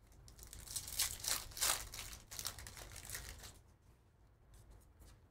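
Trading-card pack wrapper crinkling and tearing as the pack is opened and handled by hand, a quick run of crackles over the first three seconds or so, then quieter near the end.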